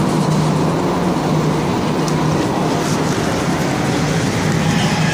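Inside a Montreal AZUR metro car running on rubber tyres through the tunnel: a loud, steady rush of running noise with a low hum underneath.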